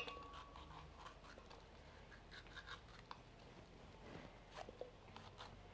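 Faint scattered ticks and scrapes of a kitchen knife cutting green chiles into pieces by hand over a glass blender jar, with one sharp click at the start.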